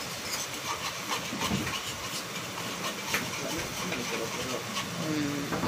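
Wire whisk stirring a thick, freshly thickened white sauce in an aluminium pan, over a steady hiss, with faint light ticks of the whisk against the pan.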